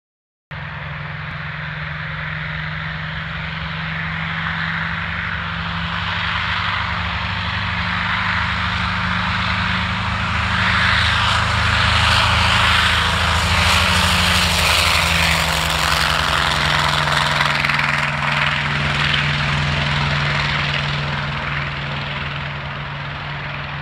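Piston-engined propeller airplane flying past, its engine drone growing louder to a peak about halfway through, dropping slightly in pitch and then fading.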